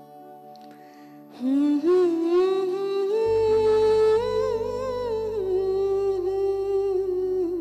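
A woman humming a slow wordless melody into a microphone, coming in about a second and a half in and holding long, wavering notes. A low, sustained accompaniment joins about halfway through.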